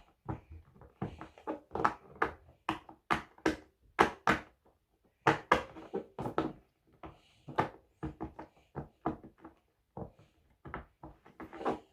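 Silicone heart-shaped pop-it fidget toy having its bubbles pressed one after another: a long run of sharp pops, about three a second, with a short pause about five seconds in.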